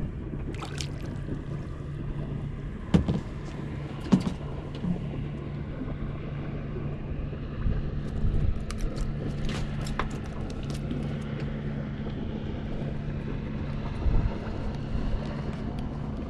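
Boat motor running with a steady low hum that drops out briefly a few times, over wind and water noise, with a few sharp knocks about three and four seconds in.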